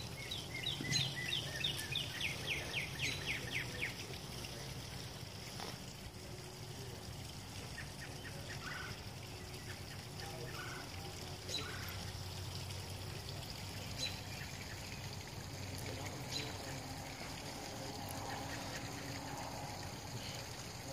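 A bird sings a quick run of down-slurred whistled notes, about four or five a second, for the first few seconds. Only a few faint chirps follow over a low, quiet background.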